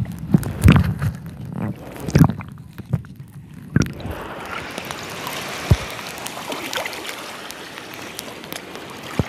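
Water sloshing and gurgling around a camera held under the surface, muffled. Several dull knocks and bumps in the first few seconds give way to a steady rush of moving water from about four seconds in.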